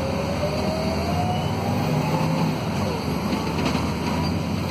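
Volvo D7C diesel engine of a Volvo B7RLE bus accelerating hard, heard from inside the cabin: a steady low drone under a whine that rises in pitch, dips about three seconds in as the ZF Ecomat automatic gearbox shifts up, then climbs again.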